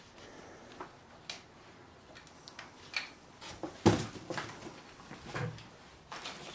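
A person moving among debris: scattered knocks, clicks and rustles, the loudest knock about four seconds in.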